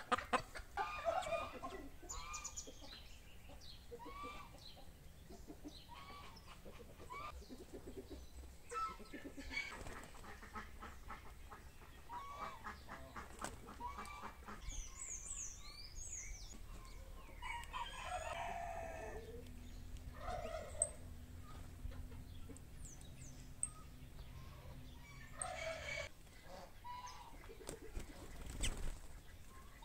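Chickens clucking and calling, with small birds chirping now and then.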